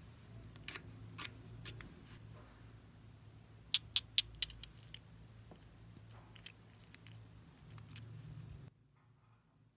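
Sharp clicks of small nail-polish bottles being handled and tapped with fingernails: a few softer clicks, then four loud ones in quick succession about four seconds in. A faint low hum runs underneath and drops out shortly before the end.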